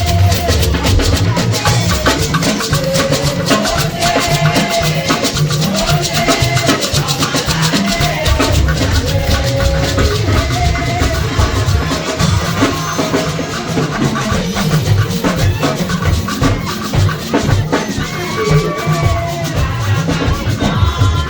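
Upbeat music with a busy drum kit, shakers and a strong bass, and a melody line gliding over them.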